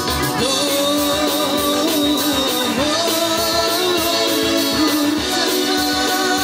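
Background music: a song with a sung melody over guitar and a steady beat.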